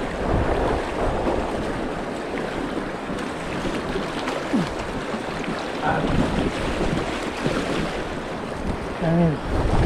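Fast river water rushing and splashing around the legs of a person standing in it, with wind noise on the microphone.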